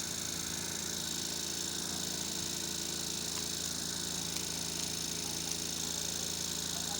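Steady electrical or mechanical hum with a constant high hiss, with no change in level or pitch.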